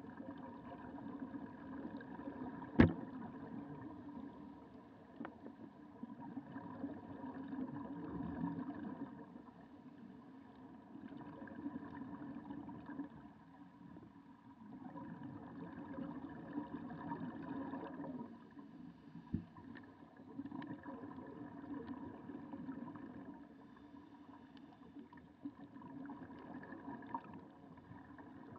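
Muffled underwater noise heard by a camera in a sealed waterproof housing, swelling and fading every few seconds. There is a sharp, loud knock about three seconds in and a fainter one later on.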